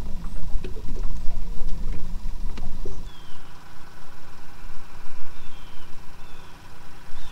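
A low rumble with scattered clicks that drops away about three seconds in. It leaves a steady faint hum with a few short, falling chirps from birds.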